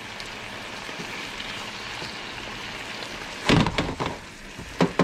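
Fish and vegetables in marinade sizzling and simmering in a nonstick frying pan as the sauce reduces. About three and a half seconds in, and again near the end, sharp scraping knocks as the pan is shifted on the smooth-top stove and stirred with a wooden spatula.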